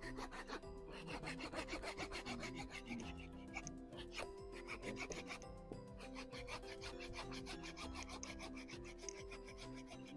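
Small hand pruning saw cutting through the woody trunk of an anting putri (Wrightia religiosa) bonsai stock in quick, continuous rasping back-and-forth strokes, over soft background music.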